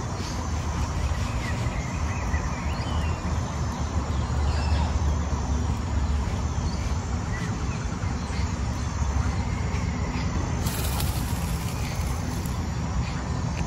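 Steady low rumble with a noisy hiss over it, and faint bird chirps now and then. A brief high hiss comes about eleven seconds in.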